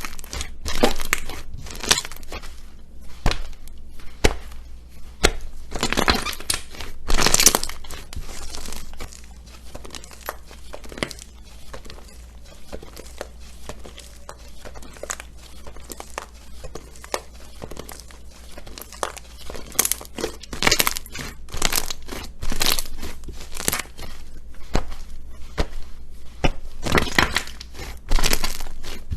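Slime being handled by hand, giving irregular bursts of crackling and crinkling, loudest about seven seconds in and again near the end.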